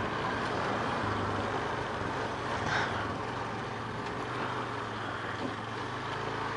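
Honda off-road vehicle driving along, its engine running steadily under a haze of tyre and ride noise.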